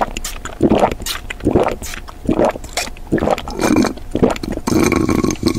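A person drinking through a straw from a small bottle, close up: a run of gulps about one every 0.7 s, with a longer sucking sound near the end.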